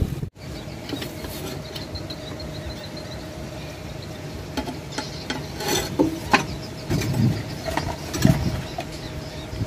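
Metal parts of a disassembled water pump clinking and scraping as they are handled, with several sharp clicks and a short run of light ticks, over a steady faint hum.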